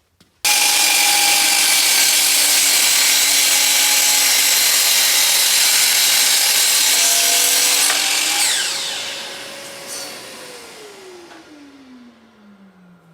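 Woodworking power tool, likely a saw, running and cutting wood, loud and steady. About eight seconds in it is switched off and the motor winds down, its pitch falling steadily as it slows.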